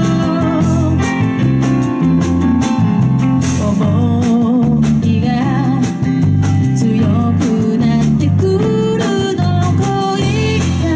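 Live band playing a song: bass, drum kit, guitar and keyboard under a sung lead melody.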